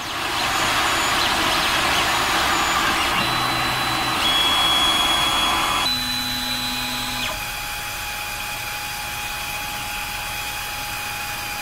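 Creality Ender 3 Pro 3D printer running: a steady fan whir with stepper-motor tones that change pitch or stop a few times as the axes move, the noise dropping to a quieter whir about six seconds in.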